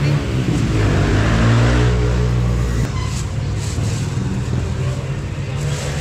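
A motor vehicle engine running close by, its pitch rising over the first second or two, then holding steady.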